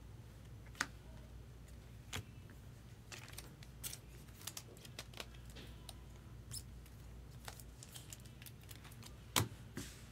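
Faint, scattered light clicks and taps of trading cards and card packs being handled, with one sharper click near the end.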